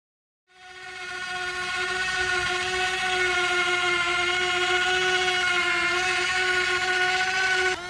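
Electric motor of a Huina remote-control toy excavator whining at one steady high pitch. It fades in about half a second in and holds steady.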